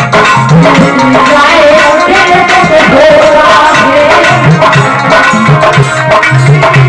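Indian devotional bhajan music with tabla drumming under a wavering melodic line.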